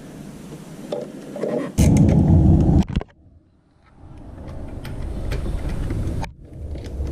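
Socket wrench on an extension working a 10 mm bolt in a tight space, with scattered metallic clicks and handling clunks. A loud low scraping noise lasts about a second, starting about two seconds in, and a short near-silent pause follows.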